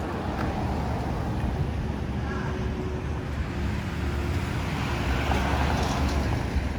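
An aircraft flying overhead: a steady engine rumble that swells a little about five seconds in.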